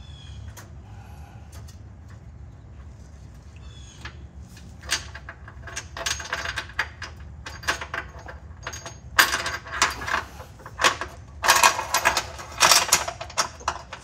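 A hitch carriage bolt on a fish wire clinking, rattling and scraping against the steel of a car's frame rail as it is fed through the access hole. The clatter starts about five seconds in and comes in quick clusters over a steady low hum.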